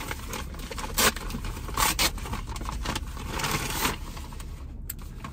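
Package wrapping and paper rustling and crinkling as a parcel is torn open and its contents pulled out by hand, loudest about one and two seconds in and in a longer stretch toward four seconds, over a low steady rumble.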